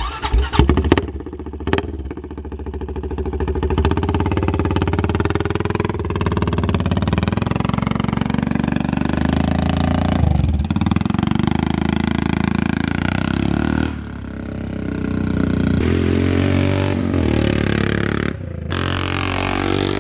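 Honda four-wheeler (ATV) engine running under load as it tows a kayak with a rider across grass, building up after a couple of seconds, easing off about two-thirds of the way through and then picking up again. A few sharp knocks in the first two seconds.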